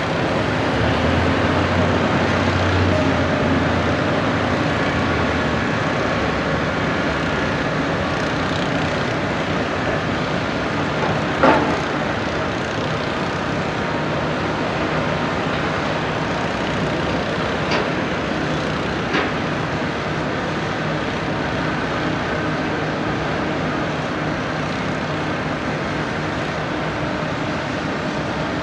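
Heavy construction machinery running steadily, with three short sharp knocks, the loudest about a third of the way through.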